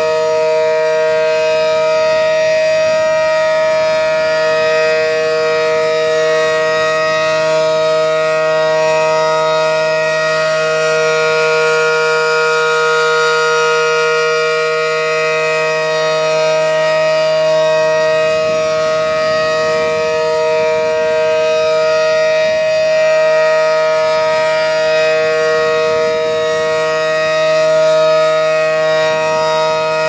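Allertor 125 rotating outdoor warning siren sounding its steady alert tone, a two-note chord that swells and fades every several seconds as the horns turn. It is an old unit that the owner calls weak and tired.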